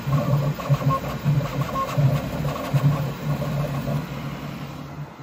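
FDM 3D printer running a print, its stepper motors buzzing and whirring in quick, uneven pulses as the print head moves back and forth.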